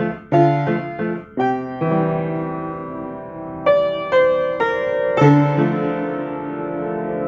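Piano playing a repeated riff: a quick run of struck chords, a chord held and left ringing for about two seconds, then another group of chords in the middle that rings on to the end.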